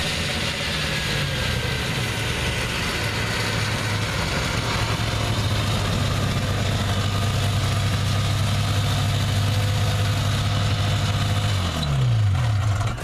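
1979 Scorpion Sting snowmobile's Cuyuna 440 two-stroke engine running steadily as the sled rides up and idles. Near the end it is shut off, and its pitch falls as it runs down to a stop.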